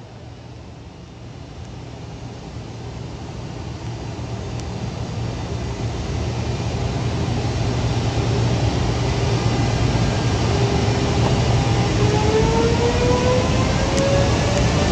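EF210 electric locomotive pulling away with its train, the running noise and low hum growing steadily louder as it comes closer. From about ten seconds in, a whine from its inverter-driven traction motors rises in pitch as it gathers speed.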